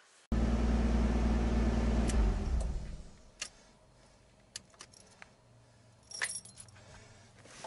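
Car engine running with a steady low hum that starts suddenly, then dies away over about a second as it is switched off. Afterwards keys jangle and click in the ignition.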